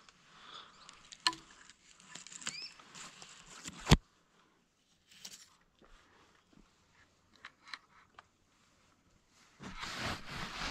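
Close handling noise: scattered faint rustles and clicks, one sharp, loud impact about four seconds in, then near silence, and a burst of rustling near the end.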